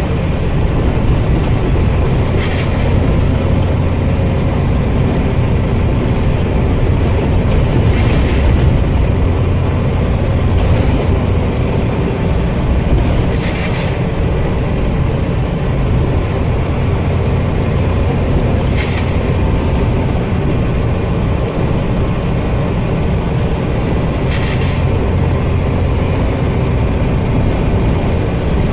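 Scania OmniCity bus running with a steady low rumble, broken about six times by short sharp air hisses, the loud 'sneezing' of worn-out air tanks.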